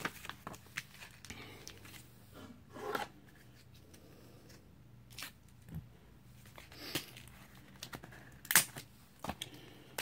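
Trading cards in plastic holders and their packaging being handled: scattered rustles, clicks and brief tearing sounds, with a louder one about three seconds in and another near the end.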